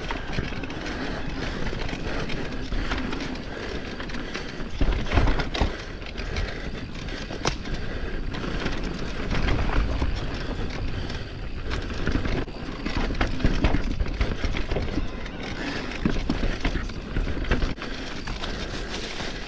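Electric mountain bike riding a dirt trail: tyres rolling on the ground and the bike rattling over bumps, with frequent sharp knocks and a low rumble that swells now and then.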